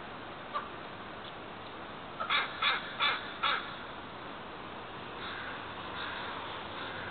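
American crow cawing: one short caw about half a second in, then a quick run of four harsh caws about two seconds in.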